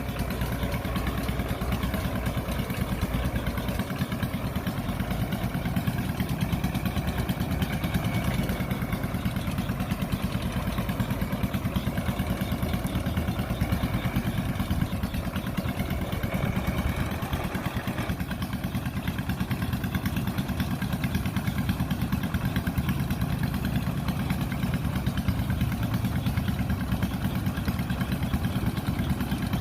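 An engine running steadily at constant speed, with a fast, even pulse and no change in pitch.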